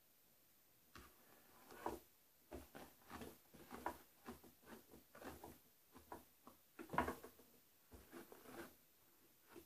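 Hairbrush strokes through a styling doll head's long hair, brushing out knots: a run of short, faint brushing rasps, about two a second, starting about a second in, with one louder stroke about two-thirds of the way through.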